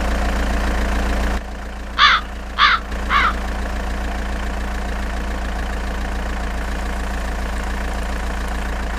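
Dubbed-in truck engine idling steadily with a deep hum, and a bird calling three times about two to three seconds in.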